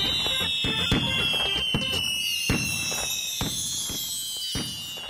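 Cartoon fireworks: a string of bangs, about two a second, under a thin whistle that glides slowly downward, with high glittering tinkles above, the whole growing gradually fainter.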